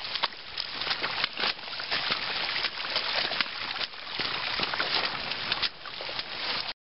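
Shallow meltwater running over rocks, with footsteps splashing and knocking on the wet stones. The sound cuts off abruptly near the end.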